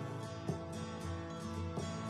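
Instrumental background music, with plucked notes sounding about half a second in and again near the end.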